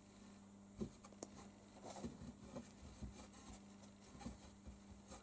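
Faint scratching and a few light, scattered taps on a cardboard box, over a low steady hum.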